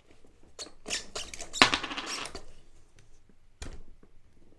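Metal brackets and the rear hub-motor wheel of an electric scooter clinking and knocking as they are pulled apart by hand, with a longer scraping rattle about a second and a half in and a dull thump near the end.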